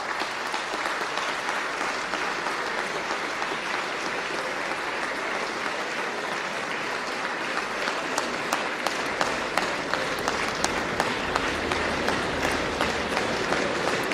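A large crowd applauding: a steady wash of many hands clapping, which grows a little louder from about eight seconds in, when single claps start to stand out.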